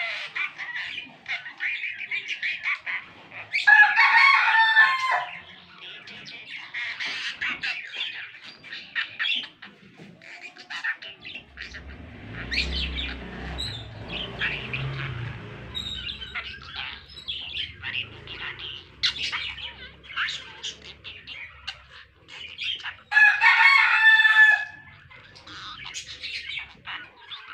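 Yellow budgerigar chattering and warbling continuously in quick, twittering phrases, with two louder, longer calls, one about four seconds in and one near the end. A low rumble of handling noise comes in the middle.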